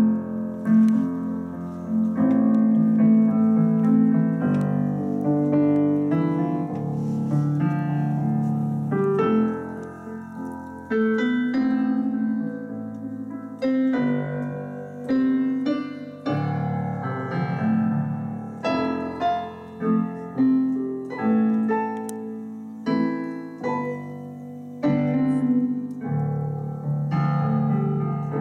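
Piano played in the room: a continuous piece of chords and melody notes, each note struck and left to ring and fade.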